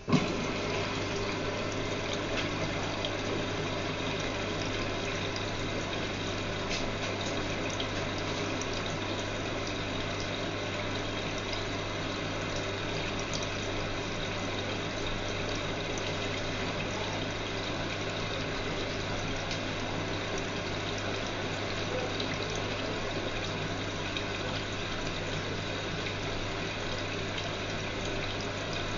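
Water rushing steadily through a Whirlpool washing machine under a constant electrical hum, starting suddenly.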